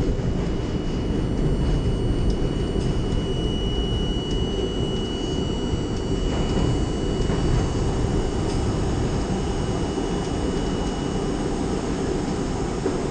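R32 subway train running at speed through the tunnel: a steady low rumble of wheels and running gear, with occasional clicks over rail joints. A thin high whine runs over it and stops shortly before the end.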